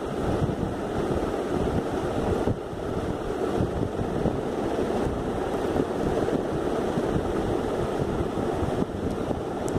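Steady rushing noise of moving air on the microphone.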